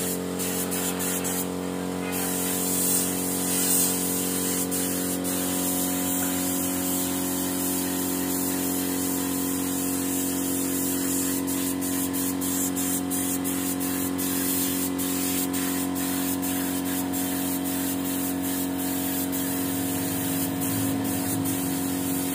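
Compressed-air paint spray gun hissing as finish is sprayed onto wood, over a steady hum.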